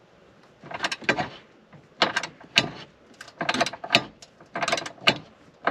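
Socket ratchet clicking in half a dozen short bursts with pauses between, as a 13 mm bolt on a car battery's hold-down brace is turned.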